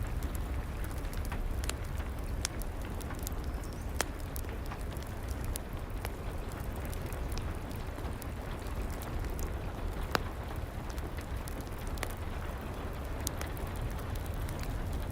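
Steady rain together with a wood fire crackling, its pops coming at irregular moments, two of them sharper about a third and two-thirds of the way through.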